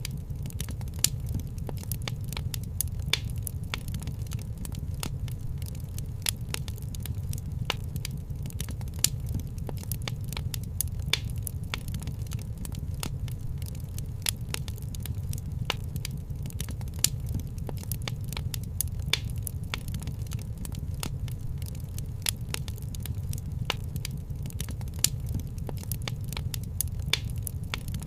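Wood fire in a fireplace crackling: irregular sharp pops and snaps, a few louder than the rest, over a steady low rumble.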